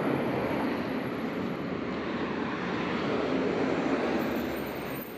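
Steady city street traffic noise, a continuous rushing hum of passing vehicles.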